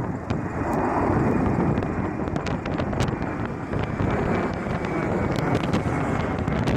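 Gusty wind buffeting the microphone, a loud rumbling rush, over the steady background noise of jet airliners.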